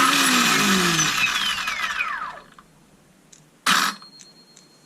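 Ryobi 18V brushless chainsaw motor spinning with a whir when the switch is pressed, then winding down with a steadily falling pitch over about two seconds, followed by one short burst near the end. It is running again after stuttering, and the owner wonders whether the switch is to blame.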